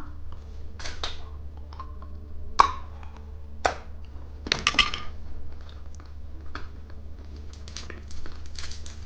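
Candy packaging being handled and opened: scattered sharp clicks and short crinkles, with a few louder snaps a little after two and a half seconds, at about three and a half seconds, and around four and a half to five seconds.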